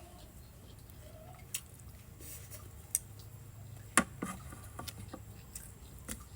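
Eating utensils clicking and tapping against dishes a few times during a meal, the sharpest click about four seconds in, with soft wet squishing of food between.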